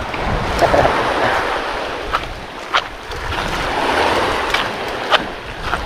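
Small waves washing over a pebble shore, swelling and easing twice, with wind on the microphone. Several sharp short clicks are scattered through it.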